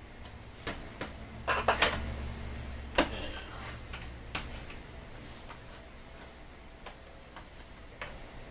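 Scattered clicks and light knocks from hands handling a pleated RV window shade and its bottom rail, with a louder cluster of clicks about one and a half to two seconds in and a single sharp click at about three seconds.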